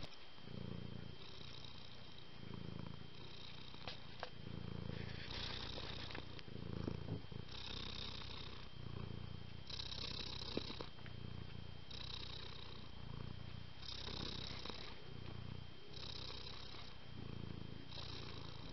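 Domestic cat purring close to the microphone, the rumble rising and easing with each breath in a regular cycle of about two seconds.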